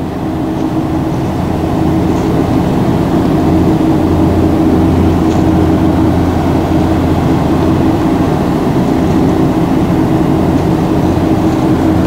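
Steady low drone of a large ship's engines and machinery, with a hum of several steady low tones under a broad rumble.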